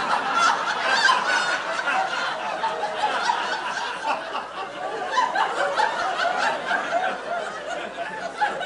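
A theatre audience laughing together, a long sustained wave of laughter that is loudest about a second in and then slowly eases.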